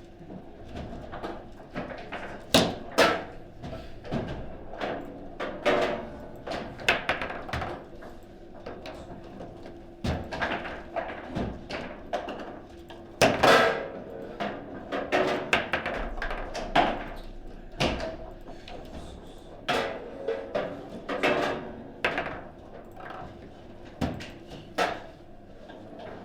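Table football being played: irregular sharp knocks and clacks of the ball being struck by the rod figures and hitting the table, with a few harder shots, the loudest a pair of hits a few seconds in and one about halfway.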